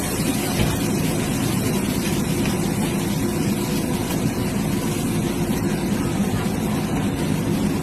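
Steady noise of a high-pressure gas wok burner while mie goreng (fried noodles) cooks, with no breaks or changes.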